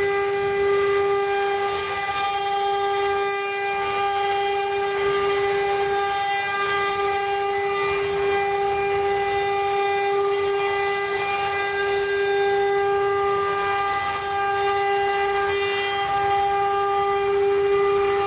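CNC wood-carving router spindles running with a steady high whine and a hiss of cutting noise beneath it.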